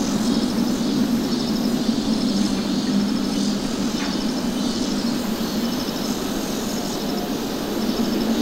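Boeing 777-300ER jet engines heard from a distance as a steady low rumble, with short high chirping trills repeating about every second and a half above it.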